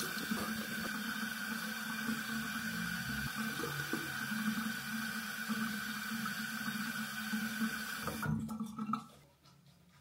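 Bathroom sink tap running steadily: an even rush of water with a steady hum in it, turned off near the end.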